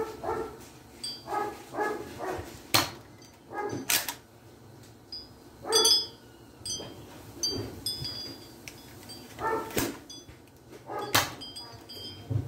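A dog barking over and over in short barks, with four sharp snaps among them from a Nerf Sharpfire dart blaster being fired.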